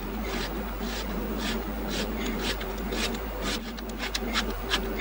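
Neway hand valve seat cutter, its 45-degree blades scraping a valve seat in a Toyota 3SGE cylinder head as the T-bar is turned by hand, cutting a fresh seat face. A rasping stroke about twice a second, coming quicker near the end.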